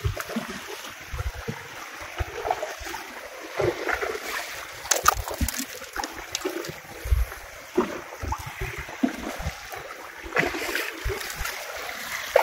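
Sea water lapping and splashing against the hull of a small inflatable boat, with irregular low thumps and scattered short clicks.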